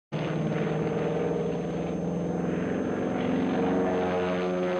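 Stearman biplane's radial engine and propeller droning steadily through aerobatics, the pitch shifting slightly about three and a half seconds in.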